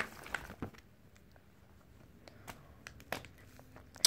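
Scattered light clicks and crinkles from fingers handling the clear plastic pockets of a collector's album holding metal football tags.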